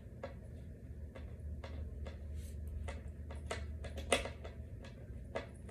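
Small irregular clicks and knocks of screws being driven into particleboard dresser parts and the parts being handled, with one sharper knock about four seconds in, over a low steady hum.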